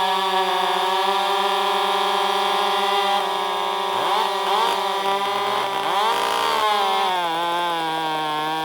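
Two-stroke chainsaw running at high revs with a steady pitch, sagging slightly about two-thirds of the way through as it cuts on a freshly filed chain, then cutting off abruptly.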